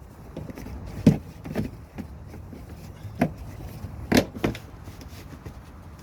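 2014 Ford Escape's plastic fender liner being bent and pulled down by hand, giving a handful of sharp cracks and snaps, the loudest about a second in. It sounds like it is breaking.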